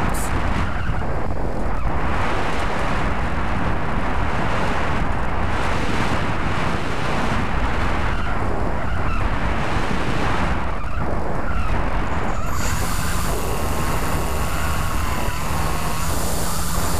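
Wind rushing and buffeting over a GoPro microphone mounted on a Bixler 2 RC foam airplane in flight. About three-quarters of the way through, a wavering whine from the plane's electric pusher motor comes in over the wind noise.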